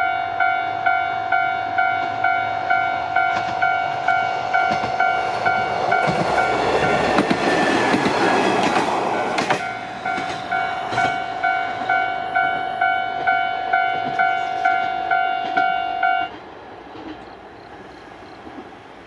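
Japanese railroad crossing warning bell ringing in a steady electronic chime about twice a second. A train passes over the crossing midway as a swelling rumble of wheels on the rails, and the bell cuts off suddenly near the end once the train has cleared.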